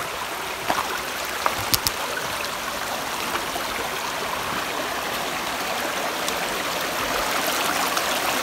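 Shallow, clear stream babbling over rocks, a steady rush of water, with a few sharp clicks in the first two seconds. It grows a little louder near the end.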